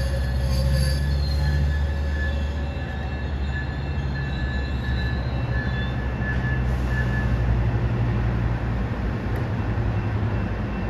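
Metrolink commuter train with bilevel coaches rolling slowly past, a steady deep diesel locomotive rumble under thin, high wheel squeals that come and go and die away about seven seconds in.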